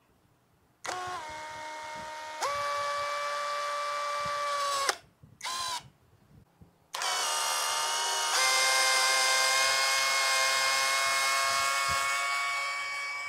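Cordless drill motor running with a steady whine. It starts about a second in and steps up in pitch partway through, stops, gives a brief blip, then runs again from about seven seconds in and steps up once more.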